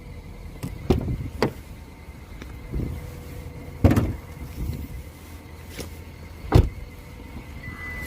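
Several sharp knocks and clunks over a steady low hum from a Hyundai i30's engine bay. Near the end a thin, high, steady whistle begins: the squeal attributed to the water pump.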